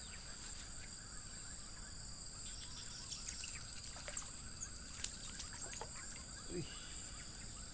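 A few short splashes and sharp clicks as a hooked catfish is pulled out of the ditch water, the loudest of them about three to four seconds in. A steady high-pitched drone of insects runs underneath.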